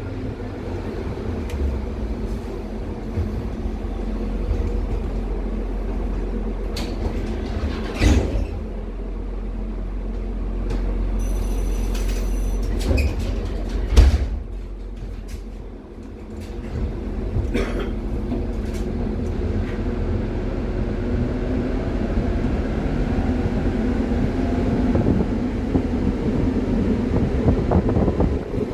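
Konstal 105Na tram heard from inside the passenger saloon while running: a steady rumble of wheels and running gear, with two sharp knocks about a third and halfway through. After a short lull, the traction motors' whine rises in pitch and the noise builds as the tram picks up speed.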